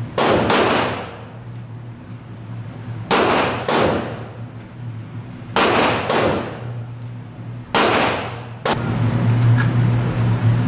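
Seven gunshots, mostly in close pairs two to three seconds apart, each echoing in an indoor firing range. Near the end a steady low hum grows louder.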